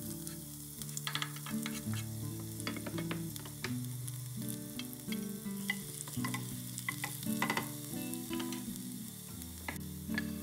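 Chopped onion sizzling as it drops into hot olive oil in a saucepan, then frying while a wooden spoon stirs it, with irregular clicks and scrapes of the spoon against the pan.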